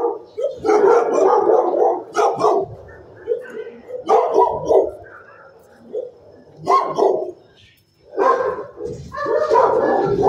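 Dogs barking in a shelter kennel, in repeated bursts with short lulls between.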